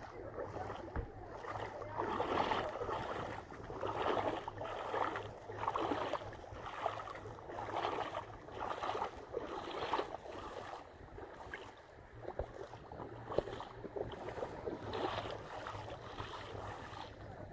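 Bare feet wading through shallow seawater, a splash and swish with each step about once a second.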